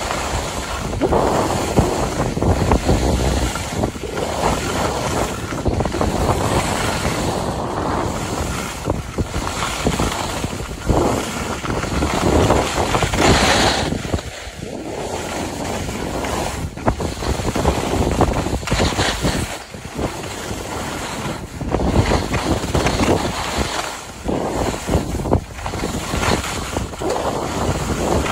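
Wind rushing over a phone's microphone while skiing downhill, mixed with the hiss and scrape of skis sliding on packed snow, swelling and fading every second or two.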